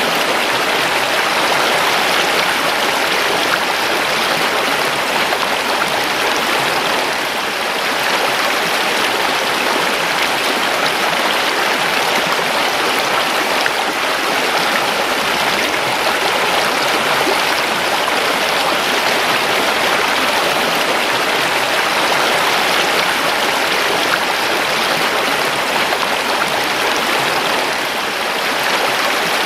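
A creek flowing: steady rushing and babbling water.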